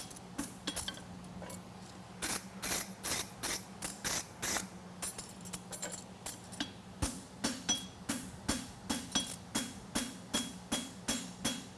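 Farrier's hammer striking a steel horseshoe on the anvil in a steady rhythm, about three blows a second, with a short metallic ring, while he works and cleans up the shoe's edges. A steady low hum runs underneath.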